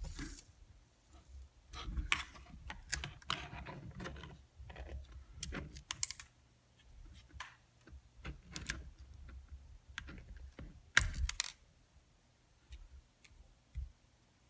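Irregular clicks, taps and light knocks of small parts and tools being handled on a Getac F110 rugged tablet while its SSD is removed, with one sharper knock about eleven seconds in.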